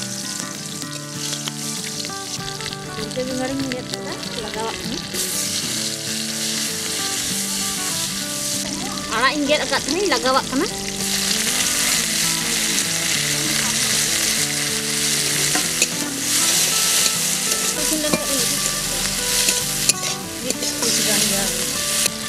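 Green chillies, and then thankuni (pennywort) greens with tomato, sizzling and frying in hot oil in an aluminium kadai. The sizzle gets louder about five seconds in and again around the middle.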